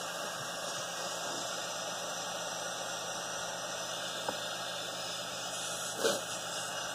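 Handheld butane torch lighter burning with a steady hiss as its jet flame heats the quartz nail of a dab rig toward red hot, with a short louder noise about six seconds in.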